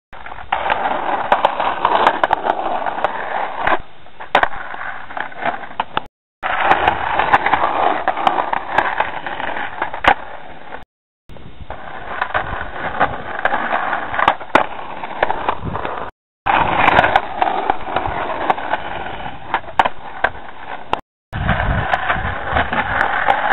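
Skateboard wheels rolling on a concrete sidewalk, a steady rumble with frequent sharp knocks. The sound cuts out briefly four times, at the breaks between takes.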